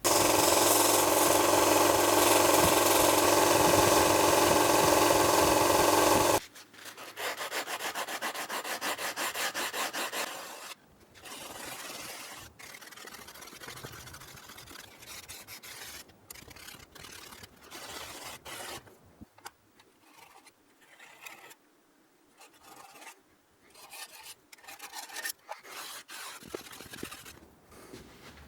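A motor-driven power tool runs loudly and steadily for about six seconds, then cuts off abruptly. It is followed by rapid, even rubbing strokes for a few seconds, then quieter rubbing and scraping on and off as a workpiece is worked by hand.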